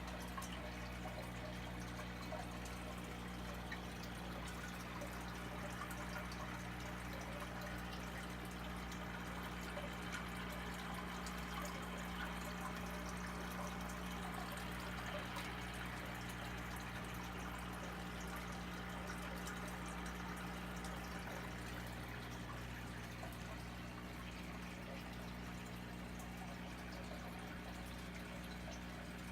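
Aquarium water running steadily, a continuous trickle and splash of water circulating into the tank, over a steady low hum.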